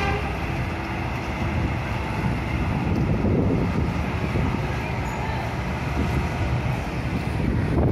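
Diesel engine of an intercity coach running with a steady low rumble as the bus moves slowly across the terminal apron.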